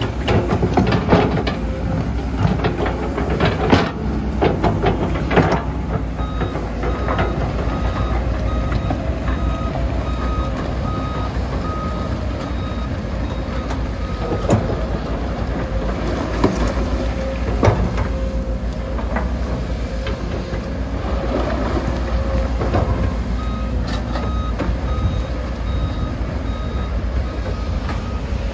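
Komatsu PC200 crawler excavator with its diesel engine running steadily, and sharp clanks from the tracks and bucket working soil and rock, mostly in the first few seconds. Its travel alarm beeps in a regular series from about six seconds in to about halfway, and again near the end, as the machine moves on its tracks.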